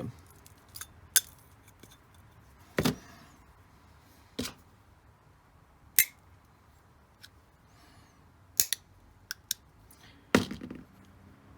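Light clicks and clinks of small metal hard-drive parts being handled and set down on a hard surface: about nine separate knocks, one to two seconds apart.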